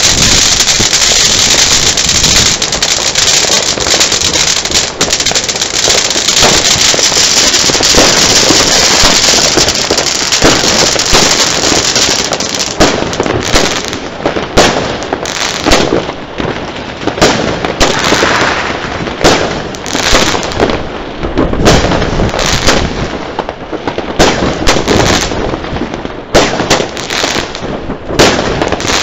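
Fireworks going off close by. For about the first twelve seconds there is a dense, loud hissing crackle; after that it breaks into many separate sharp cracks and pops in quick succession.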